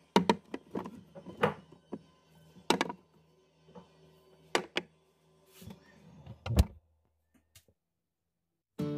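A run of sharp knocks and clatters, about a dozen in six or seven seconds, the loudest just after the start and near the middle-to-end. It cuts to silence, and acoustic guitar music starts just before the end.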